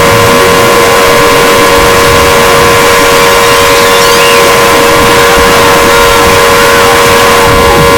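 Emergency Alert System attention signal: a steady, unwavering two-tone alarm, played so loud that it is heavily distorted, with a harsh hiss over the tones.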